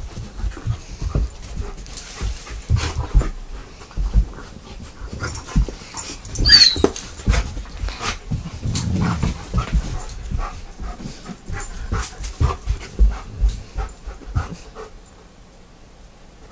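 Dogs playing with a toy, a run of irregular thumps and knocks, with a brief high squeal about six and a half seconds in.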